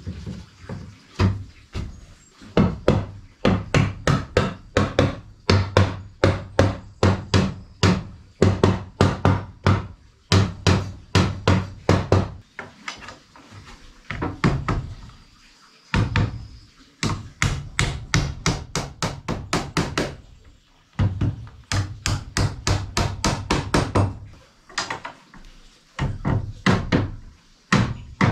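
Hammer striking wood in quick runs of blows, about three a second, broken by a few short pauses.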